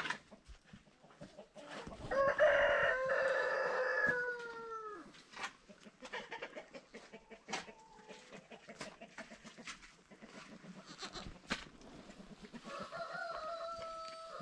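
A rooster crowing twice: a long crow about two seconds in that falls away at its end, and a fainter, shorter crow near the end.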